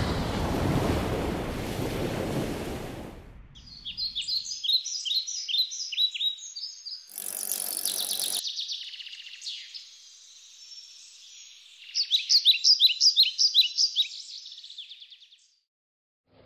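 Sea surf washing, fading out after about three seconds. Then small birds chirp rapidly in repeated clusters, with a short noisy whoosh about seven seconds in.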